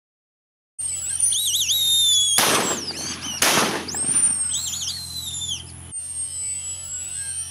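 Two shotgun shots about a second apart, amid the high, wavering whistled calls of a flock of black-bellied whistling ducks flying overhead. The sound starts suddenly about a second in.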